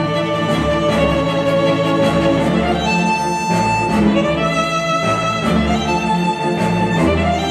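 Instrumental music with a violin playing long held notes over strings and a steady bass beat, played back through a pair of KEF Q350 bookshelf speakers driven by an Audiolab 6000A integrated amplifier.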